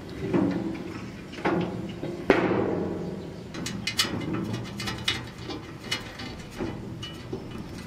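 Knocks and clunks from the hollow steel body of a Smoke Hollow charcoal barbecue grill as its lid, hinge and latch parts are handled and fitted. Several separate knocks, each followed by a short metallic ringing, with the sharpest about two seconds in.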